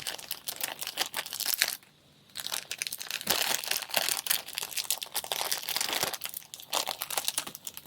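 Crinkling plastic packaging with many small clicks of handling, with a brief total dropout about two seconds in.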